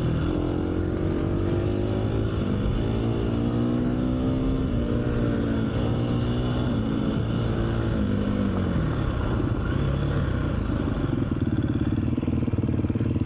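250 cc dirt bike engine under way, its pitch rising and falling repeatedly with the throttle. About nine seconds in it drops away to a lower, steadier chug as the bike slows.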